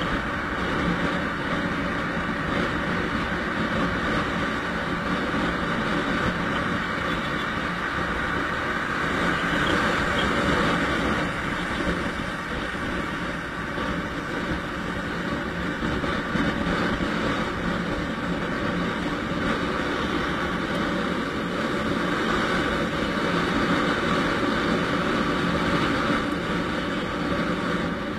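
Steady rush of wind and engine and road noise from a motor scooter being ridden at highway speed, with no distinct events.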